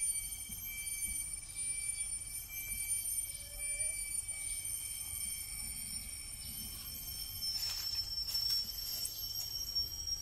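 Steady, high-pitched chorus of forest insects, several buzzing at different pitches, with a few short rustles or clicks about eight seconds in.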